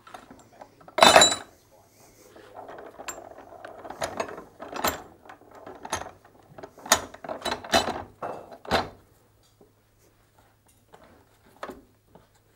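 Low carbon steel pipe being clamped in a bench pipe vise: a loud metal clank about a second in, then a run of irregular clicks and knocks as the vise screw is wound down, which stops about 9 seconds in.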